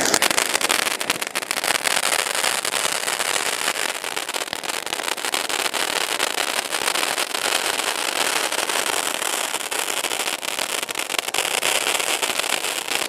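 Ajanta 'Dinosaur' ground fountain firework (anar) spraying sparks: a loud, steady hiss with dense crackling.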